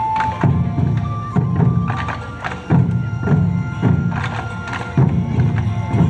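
Bon odori festival music: a taiko drum struck about once a second, each beat deep and dying away, under a held melody line.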